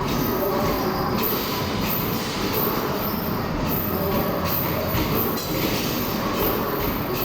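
Steady, dense rumbling clatter of a busy amusement arcade around basketball shooting machines, with no single event standing out.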